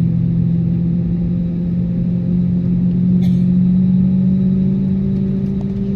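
Airbus A320neo's CFM LEAP-1A jet engines heard inside the cabin: a steady low drone whose pitch creeps slowly upward. A short click about three seconds in.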